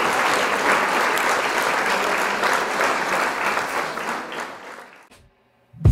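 Clapping applause that fades out about five seconds in.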